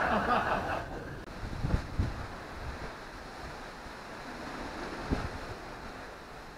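Audience laughter and applause fading out and cut off about a second in. Then wind buffeting the microphone over the open sea, with an even low rush of water and a few soft low thumps.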